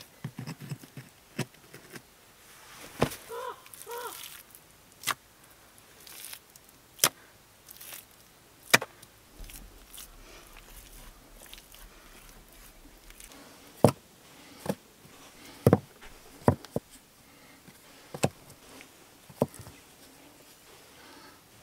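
Stones knocking against one another as they are set by hand into wet clay for a stone-and-clay stove. The knocks are sharp and irregular, a dozen or so, spaced one to two seconds apart.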